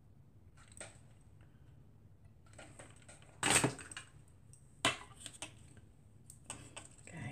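Paper and card pieces being handled and pressed down onto a card on a cutting mat: scattered rustles and small taps, the loudest a short rustle about three and a half seconds in, then a sharp tap about a second later and a run of small clicks near the end.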